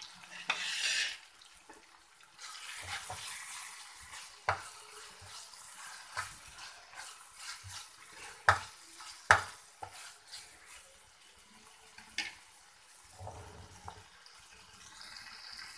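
Onion-tomato masala being fried down in oil in a metal frying pan: a soft sizzle while it is stirred, with sharp clicks and scrapes of the utensil against the pan.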